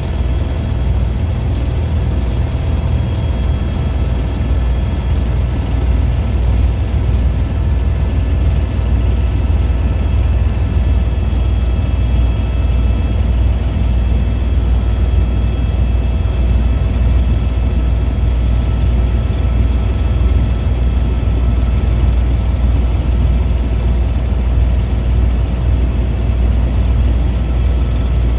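Helicopter in flight: the steady, loud low drone of the rotor and engine, with faint steady higher whining tones above it.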